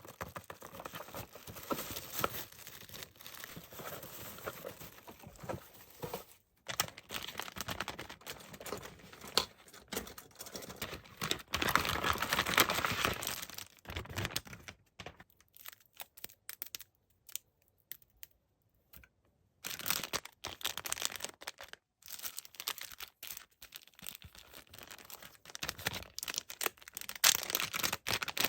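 Parcel packaging handled and opened by hand: tape or wrapping tearing and plastic crinkling, in uneven bursts with short pauses, the loudest stretch about halfway through.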